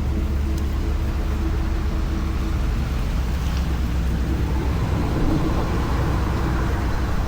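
An engine running steadily at an even, low pitch, with no revving or change.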